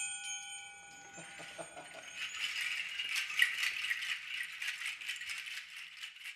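Chime-like tones ringing out and fading over the first couple of seconds, while a hand shaker rattles. The shaking thickens into a dense, rapid rattle from about two seconds in and dies away near the end.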